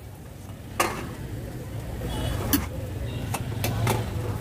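Metal spatula tapping and scraping on a dosa griddle, a handful of sharp clicks spread through the few seconds, over a steady low rumble.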